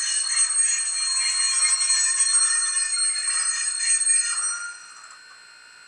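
Digital steam sound of a Rivarossi H0 Union Pacific Big Boy model locomotive playing from its small onboard speaker as the model runs: a high, thin sound with a steady ringing tone. It stops abruptly about four and a half seconds in, leaving only faint running noise.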